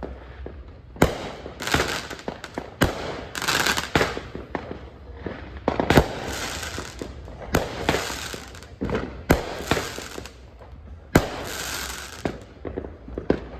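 Fireworks going off: a series of sharp bangs at irregular intervals, about eight in all, each trailing off into a brief echoing haze.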